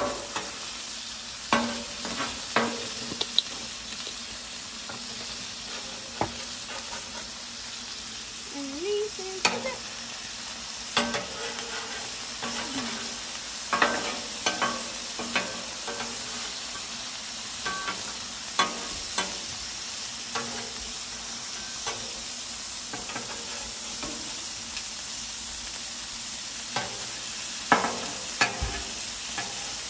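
Smash burger patties and onions sizzling steadily on a Blackstone flat-top griddle. Metal spatulas scrape and clink against the steel cooktop every second or two.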